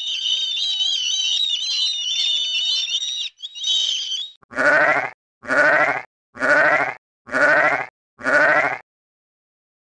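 Black-headed gulls calling in a dense, high chattering chorus for about four seconds. Then a sheep bleats five times in a row at an even pace, louder than the gulls.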